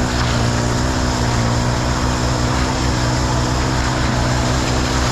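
Engine running steadily at a constant speed, a loud, unchanging low hum.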